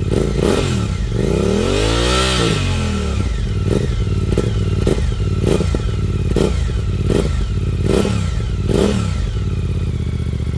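Suzuki V-Strom 800 DE's 776 cc parallel-twin engine revved through its exhaust while stationary: one longer rev that rises and falls about two seconds in, then a run of quick throttle blips roughly once a second.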